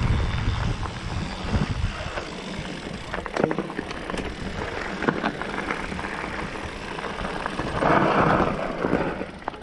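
Mountain bike riding down a dirt singletrack: wind buffeting the camera microphone, heaviest in the first two seconds, over tyre noise on dirt and scattered clicks and knocks from the bike over bumps, with a louder rush of noise about eight seconds in.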